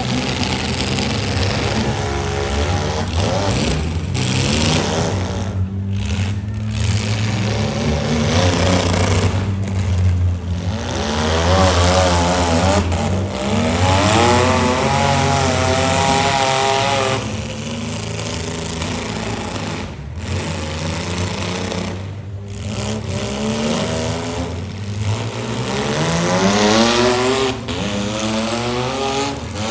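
Demolition derby car engines running hard, revving so that the pitch climbs several times over a steady low drone.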